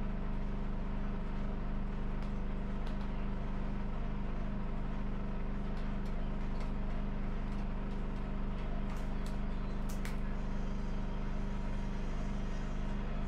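A steady low mechanical hum with several fixed pitches, like a running motor, with a few faint clicks.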